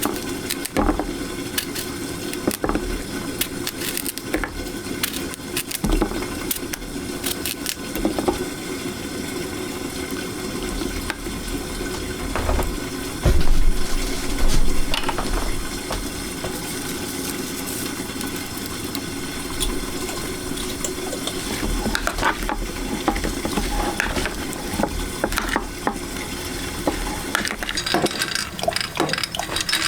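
Cooking in a pot: liquid bubbling and sizzling, with a utensil stirring and scraping, and many short clinks against the pot.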